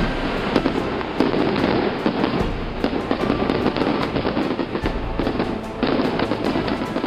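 Fireworks going off in a dense barrage, many sharp cracks and bangs in quick succession over a continuous crackle.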